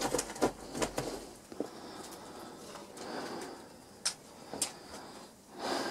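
Footsteps and scuffing on a rubble-strewn loft floor: a cluster of knocks and clicks in the first second or so, two sharp clicks about four seconds in, and a louder scrape near the end.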